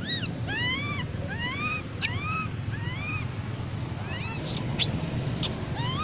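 Baby long-tailed macaque crying for its mother: a string of short, arching squeals that rise and fall in pitch, about one and a half a second. The cries grow fainter and shorter around the fourth and fifth seconds, then come louder again at the end.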